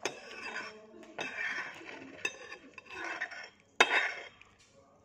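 A metal spoon scraping and clinking against a dish, with a few sharp clinks; the loudest comes just before the end.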